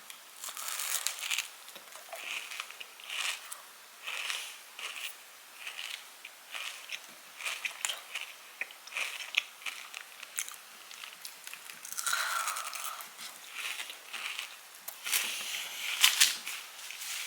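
A person biting into and chewing a fridge-hardened chocolate bar filled with crispy toasted kataifi pastry, with irregular crunches and crackles throughout.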